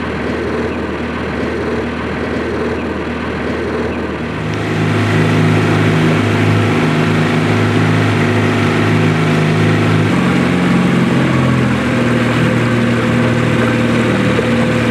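Motorboat engine running steadily. It grows louder about four seconds in as it picks up, and its tone shifts around ten seconds in.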